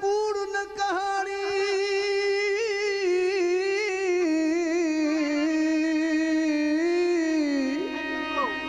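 A man singing a long wordless held note in Sindhi Sufi kalam style, with wavering vibrato, stepping down in pitch about halfway through. A faint steady drone sounds under the voice.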